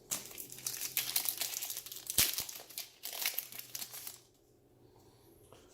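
Crinkling and tearing of a trading card pack wrapper as it is ripped open, a dense crackle lasting about four seconds and stopping abruptly.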